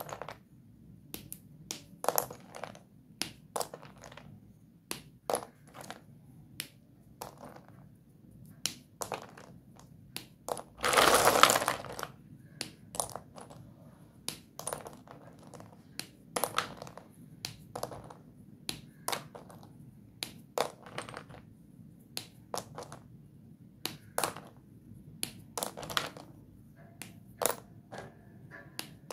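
Doms white dustless chalk sticks clicking and clattering against one another as hands stir through a plastic basin full of them, in scattered sharp clicks. About eleven seconds in there is a louder rush of about a second as a mass of sticks shifts at once.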